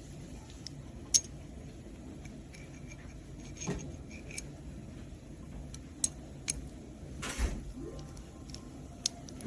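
Scattered sharp clicks and light taps of small hard objects being handled, the loudest about a second in, with a brief rustle near the end, over a faint low hum.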